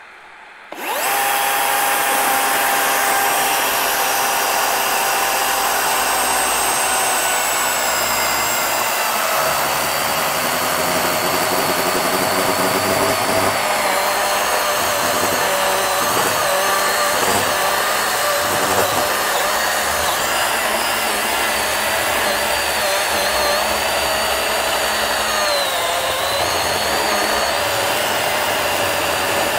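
DeWalt FlexVolt battery chainsaw fitted with a ripping chain, starting up about a second in and cutting lengthwise down a hardwood log. A steady electric motor whine that drops in pitch as the chain bites into the wood and wavers with the load.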